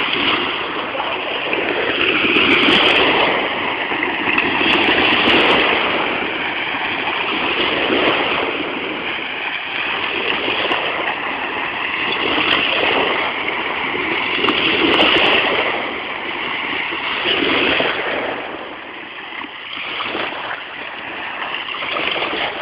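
Small river waves lapping and washing onto a sandy shore, the splashing swelling and fading every two to three seconds.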